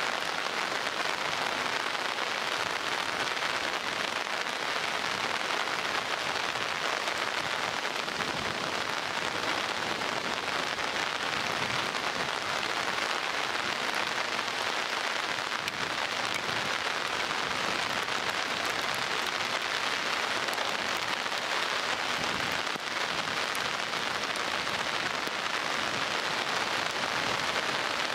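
Heavy downpour falling steadily: a dense, even hiss of rain.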